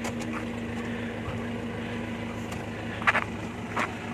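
A steady low engine hum, with two short faint sounds near the end.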